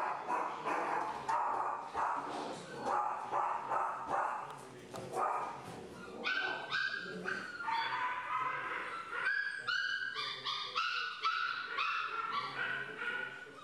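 Dogs barking and yipping repeatedly, in short high yaps one after another.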